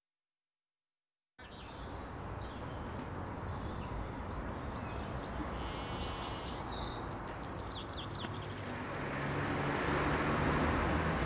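Silence for about a second and a half, then outdoor ambience: birds chirping in short repeated calls over a steady background rumble that grows louder near the end as a car passes.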